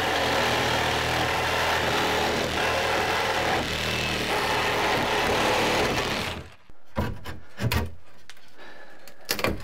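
Cordless reciprocating saw cutting through old wooden closet framing. It runs for about six seconds and then stops. A few wooden knocks follow as the cut board is worked loose.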